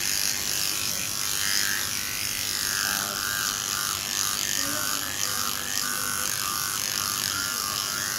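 Cordless dog-grooming clipper running steadily as its blade shaves a small dog's matted coat down to the skin.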